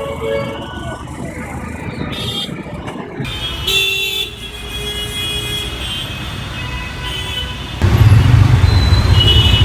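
Dense city road traffic with vehicle horns honking in short toots over the steady noise of engines. About eight seconds in, a much louder low rumble starts up close.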